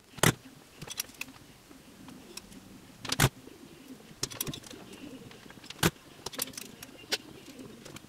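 Irregular sharp clicks and taps, about a dozen, the loudest about a quarter second and three seconds in: a curling iron and hair being handled close to the microphone. A faint low steady tone sits underneath.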